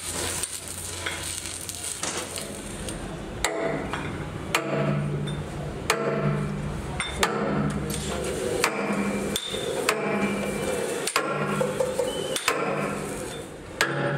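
Sledgehammer blows on the steel teeth of an excavator bucket: about ten strikes, roughly one a second, starting a few seconds in, each with a short metallic ring.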